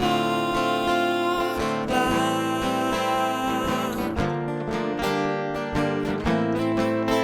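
Instrumental passage of a Thai pop ballad with strummed acoustic guitar and held accompanying notes; after about four seconds the sustained high parts drop away, leaving plucked guitar chords.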